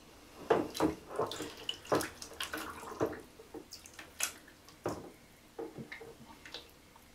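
Water splashing and sloshing in short irregular bursts as a hard-plastic underwater camcorder housing is moved about under the water.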